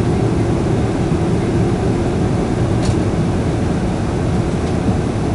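Steady low drone inside the cabin of a Boeing 747 taxiing: engines near idle together with the cabin air, heard through the fuselage. A faint click about three seconds in.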